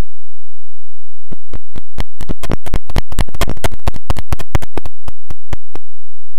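A run of sharp clicks or pops over a faint steady low hum. They start sparse about a second in, crowd together in the middle, then thin out and stop near the end.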